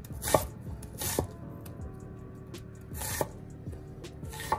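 Chef's knife dicing onion on a wooden cutting board: four sharp knocks of the blade hitting the board, irregularly spaced, over soft background music.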